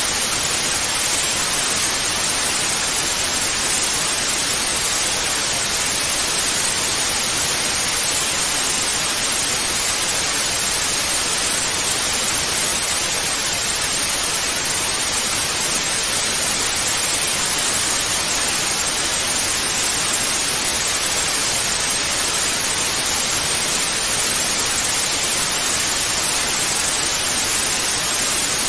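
Steady, unbroken hiss of analogue TV static (snow on an untuned channel), brightest in the upper range.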